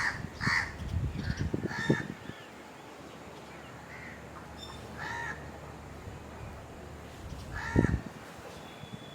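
Birds calling in short, separate calls, several in quick succession in the first two seconds, another about five seconds in, and a loud one near the end.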